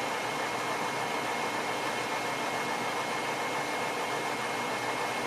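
Flashforge 3D printer running mid-print, laying the first layer: a steady whir of cooling fans with a faint, constant high whine.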